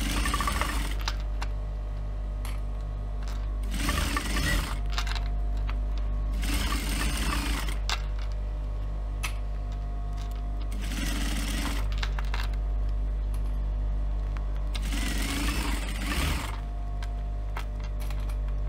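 Industrial sewing machine top-stitching a folded faux leather strap, stitching in about five short runs with a steady motor hum between them.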